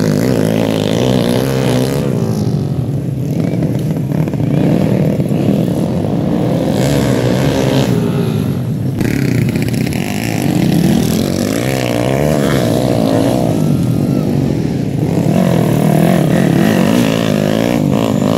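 Several small underbone motorcycle engines racing on a dirt track, overlapping. Each keeps revving up and dropping back in pitch as the riders accelerate and back off.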